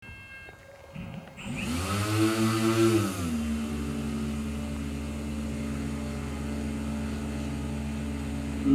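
Electric motors and propellers of an eight-axis ZipZepp hybrid airship. Their whine rises in pitch a little over a second in, holds, drops back about three seconds in, and then runs steadily.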